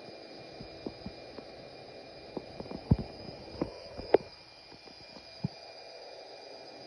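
Beko washing machine running with a steady hum, broken by irregular knocks and thuds from inside the machine, the loudest two about three and four seconds in.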